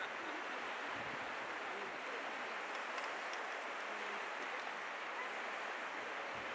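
Adige river flowing: a steady, even rush of moving water.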